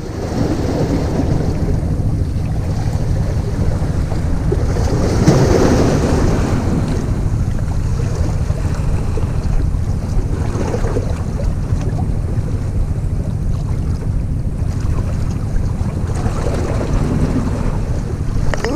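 Wind buffeting the microphone over sea water washing against breakwater rocks, a steady rushing with a louder surge about five seconds in.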